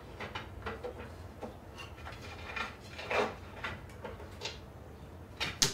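Wooden rocking chair being bumped and pushed by a puppy on a tile floor: irregular small knocks and scrapes, a louder bump a little past halfway and a sharp knock near the end.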